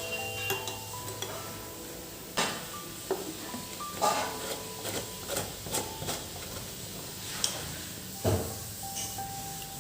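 Kitchen clatter: several separate, irregular knocks and clinks of containers and utensils being handled, the loudest at about two and a half, four and eight seconds in.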